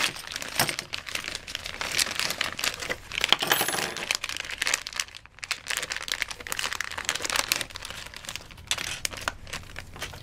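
Clear plastic bags crinkling as they are handled and pulled apart, with light metallic clinks from the steel mounting hardware and wire clips inside knocking together.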